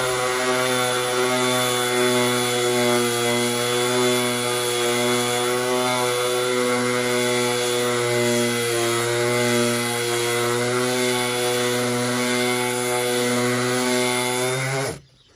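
DeWalt 20V XR brushless cordless random orbital sander running steadily with an even motor whine as it sands a wooden door frame. The motor cuts off suddenly just before the end.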